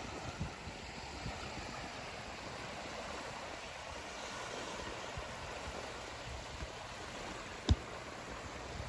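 Steady rush of sea waves and wind, with one sharp knock a little over three-quarters of the way through.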